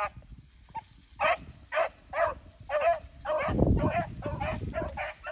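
Beagles baying in a series of drawn-out calls that begin about a second in and come faster and overlapping toward the end: the hounds giving tongue on a rabbit's track.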